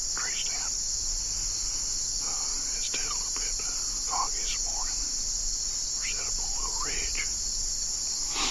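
Steady, unbroken chorus of insects shrilling in the woods at dusk, high-pitched and even, with faint low talk breaking through now and then.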